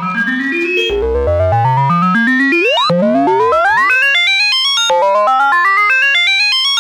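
Korg Volca Modular semi-modular synthesizer playing a fast sequence of short, evenly spaced notes that climb in stepped runs. Sliding pitch sweeps cut across the runs about halfway through.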